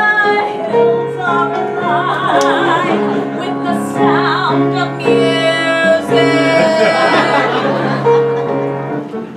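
A woman singing a musical-theatre song with long held notes and vibrato, accompanied by an upright piano.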